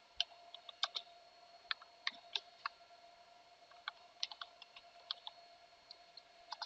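Computer keyboard typing: irregular, fairly faint key clicks, a few per second, over a faint steady hum.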